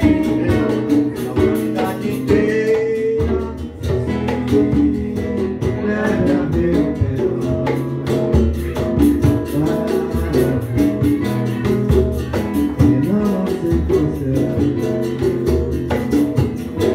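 A live band playing, with guitars over hand percussion keeping a steady beat.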